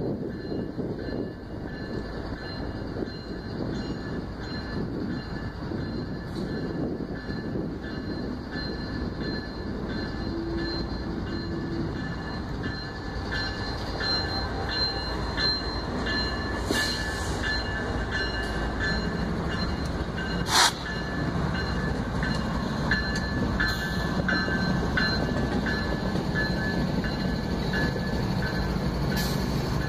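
CSX freight train's lead diesel locomotive approaching and passing close by, its engine rumbling steadily and growing a little louder, with a thin high squeal from the wheels on the rail. A single sharp clank about twenty seconds in.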